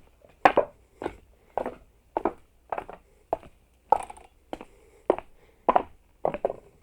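Footsteps at a steady walking pace, about one and a half steps a second, some steps landing as a quick double hit.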